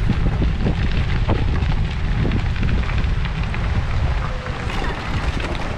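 Wind buffeting the microphone of a camera carried along on a moving ride: a steady, loud low rumble with no pitch.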